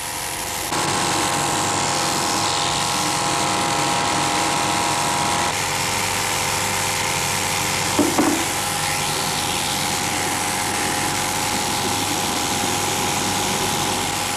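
Electric hand-held carpet cropping shears running steadily, a motor whine with cutting noise as they trim the wool pile along a carpet's edge. The sound starts about a second in, with a brief louder sound near the middle.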